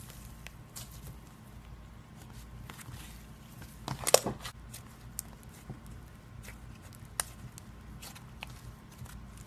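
Slime being handled and squeezed: scattered small clicking pops, with a louder burst of crackly squelching pops about four seconds in.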